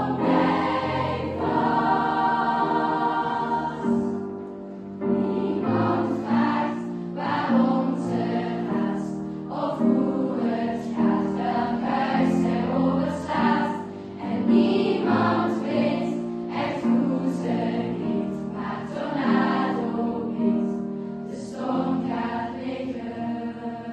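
Choral music: a choir singing sustained, slow-moving chords.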